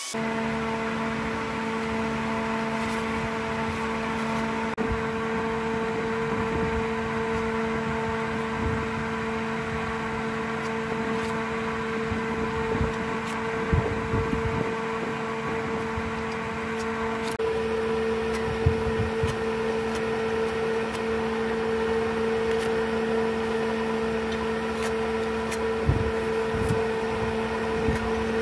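A workshop machine's electric motor running at a steady speed with a constant, even hum, with faint ticks and brief scraping now and then.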